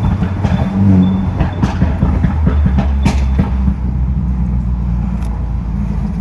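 Mercedes-Benz C200's 2.0-litre turbocharged engine dropping back to idle, its exhaust popping and crackling on the overrun, the crackles a Stage 2 tune is set up to make. The pops come thick for the first three seconds or so, then the engine idles steadily with a single pop near the end.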